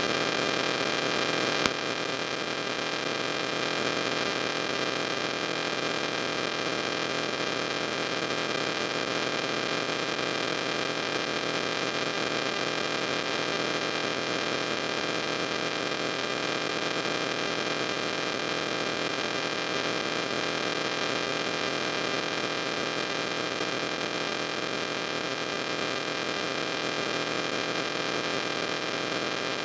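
Steady electrical hum and hiss with several constant tones, with one short click about 1.7 seconds in, after which the level drops slightly.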